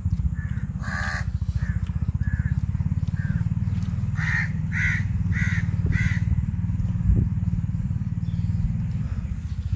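A bird calling in short calls: a few faint ones, then a run of four louder calls about half a second apart. Under it a steady low engine sound runs throughout.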